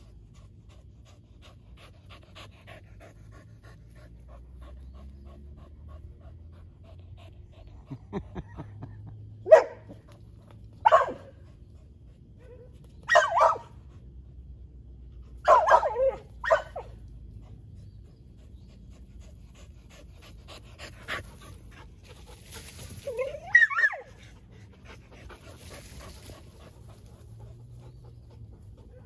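Dogs barking at each other through a chain-link fence: a run of loud single barks between about 9 and 17 seconds in, then a higher call that rises and falls near 24 seconds, with quieter panting in between.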